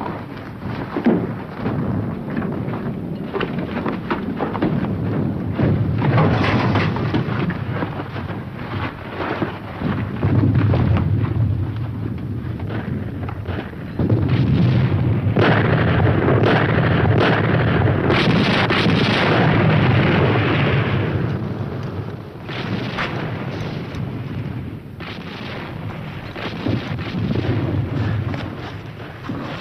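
Distant artillery barrage: a continuous rumble of overlapping booms and explosions, swelling loudest through a long stretch in the middle before easing off.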